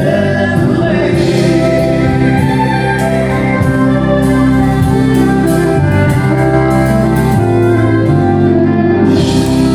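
Live country-western duet: a woman and a man singing into microphones over strummed acoustic guitar and a band with drums.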